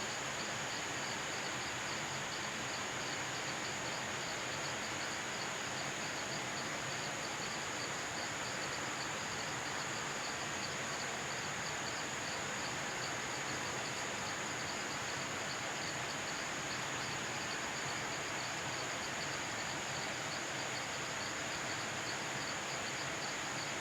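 Forest chorus of cicadas and crickets: a steady high-pitched drone with a rapid pulsing trill just below it, over an even background hiss, unchanging throughout.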